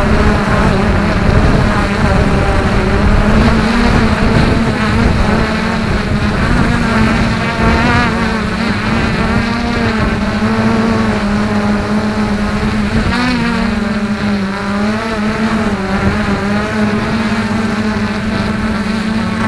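An engine running steadily with a constant low drone, its pitch wavering a little.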